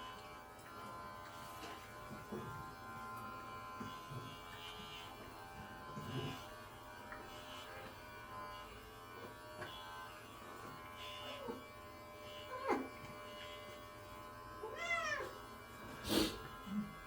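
Cat meowing several times in the second half, short cries that rise and fall in pitch, over the steady hum of electric pet clippers shaving its fur.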